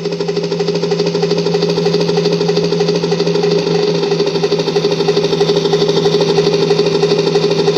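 Helicopter running steadily: a fast, even chopping pulse over a steady hum.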